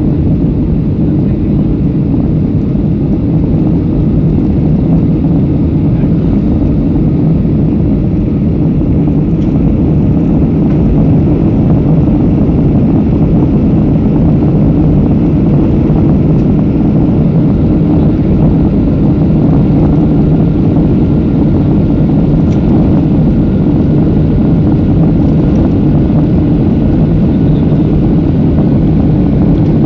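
Airliner cabin noise during takeoff and climb: the jet engines and rushing air make a loud, steady low rumble, growing slightly louder a few seconds in.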